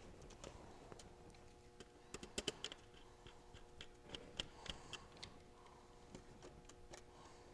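Faint clicks and taps of a small screwdriver and thermostat wires against the screw terminals of a plastic thermostat base as the wires are fastened. A quick cluster of clicks comes about two seconds in and more around the middle, over a faint steady hum.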